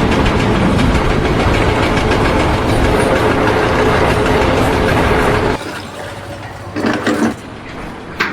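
A heavy engine running steadily, which stops abruptly about five and a half seconds in. A quieter stretch follows, with a short pitched sound and a sharp click near the end.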